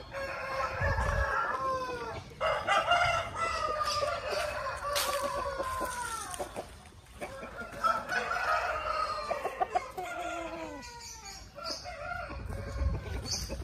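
Game-fowl roosters crowing, about three long crows one after another, each falling away in pitch at the end, with some crows overlapping.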